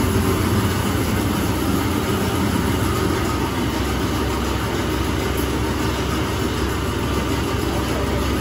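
Bulgur mill machinery running steadily: a low electric-motor hum under the hiss of cracked wheat pouring over a perforated metal sieve screen.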